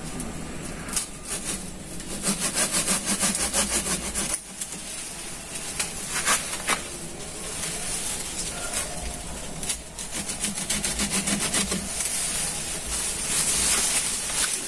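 Curved pruning hand saw cutting through a thick woody lantana stem, rasping back and forth in runs of quick strokes, about five a second, with short pauses between runs.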